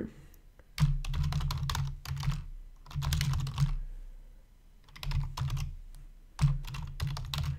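Typing on a computer keyboard: four short bursts of rapid keystrokes with brief pauses between them.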